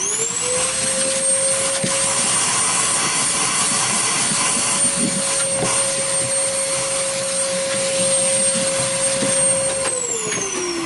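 A small electric motor spins up to a steady whine, runs evenly for about ten seconds, then winds down near the end.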